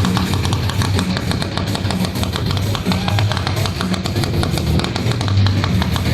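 Rock music with a steady, driving drum beat and guitar.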